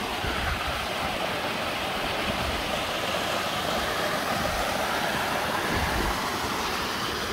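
Small hillside waterfall splashing steadily over rocks, running full with runoff after a heavy rain.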